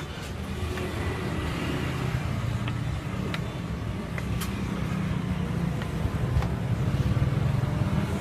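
Steady low engine rumble of street traffic, growing slightly louder toward the end, with a few sharp clicks of a knife as the pancake is cut.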